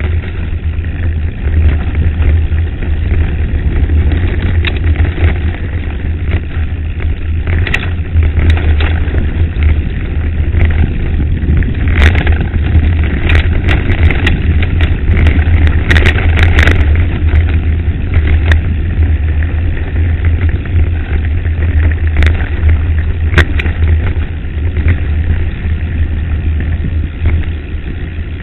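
Wind buffeting the microphone of a camera riding on a mountain bike, as a steady heavy rumble, with the bike rattling and knocking over a loose gravel track; the knocks come thickest about halfway through.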